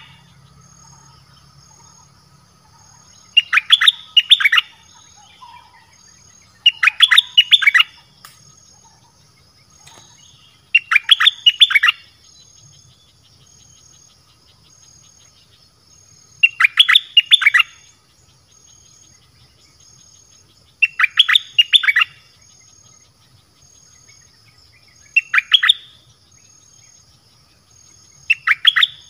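Bulbul song, the bird called nok dok taeng, played as a decoy call: short, loud, rapid phrases of clear whistled notes, repeated about every three to five seconds. A faint steady insect hum runs high behind it.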